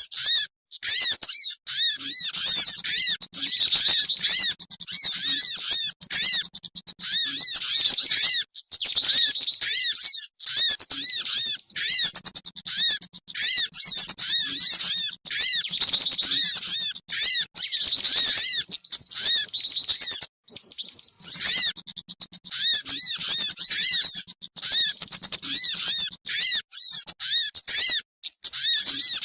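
Bird-lure recording of small songbirds, meant to draw jingjing batu (black-winged flycatcher-shrike), sogon and kemade: a dense, loud stream of rapid high-pitched chirps repeating many times a second, with only brief gaps.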